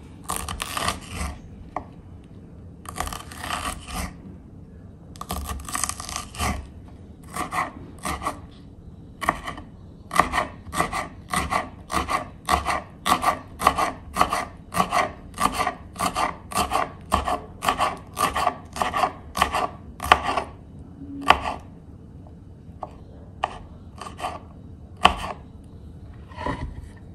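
Kitchen knife chopping a serrano chile on a wooden cutting board: short runs of cuts at first, then a steady run of about two chops a second, thinning to a few scattered cuts near the end.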